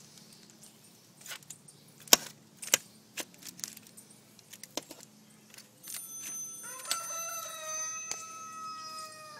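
A few sharp clicks and crinkles of a fork working smoked chicken on aluminium foil. About seven seconds in, a rooster crows once, a long held call that sags at the end.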